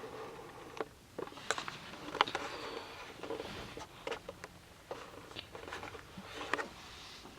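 Irregular rustling with scattered soft clicks and knocks in a small enclosed space, like people shifting about as they settle down to sleep.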